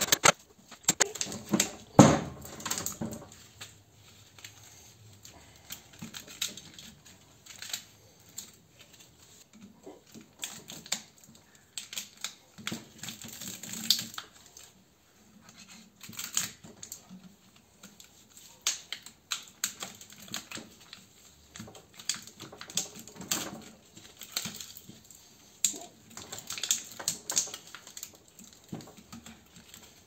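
Irregular clicks, taps and scraping of copper wire and tools against the steel stator core of a scroll compressor motor as the burnt copper windings are worked loose and pulled out, with a louder knock about two seconds in.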